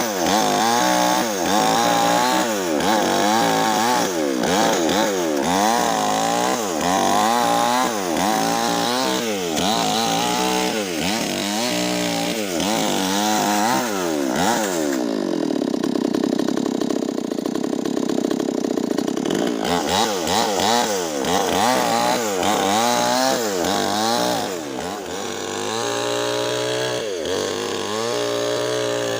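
Nixon chainsaw with a 25-inch bar ripping lengthwise through a Medang log. The engine pitch repeatedly dips under load and picks up again about once a second. For about five seconds midway it runs at a steady pitch without the cutting noise, then goes back into the cut.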